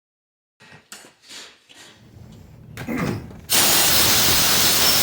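A few faint knocks and clatter, then a loud steady hiss of rushing air or spray that starts about three and a half seconds in.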